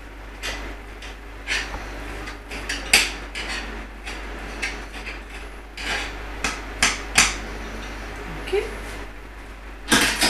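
Kitchen knife chopping fresh parsley on a chopping board: irregular sharp knocks of the blade hitting the board, with a louder clatter near the end.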